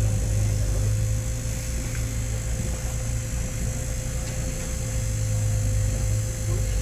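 Diesel engine of a Komatsu PC30 mini excavator running steadily, its low hum swelling and easing slightly, with a thin steady whine above it.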